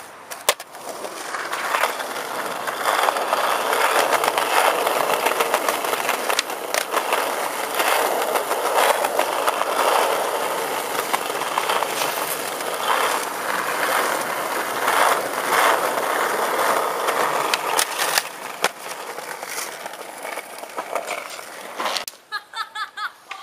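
Skateboard wheels rolling on stone paving in a steady roar, broken by irregular sharp clacks of tail pops, board strikes and landings; the roar stops about a second before the end.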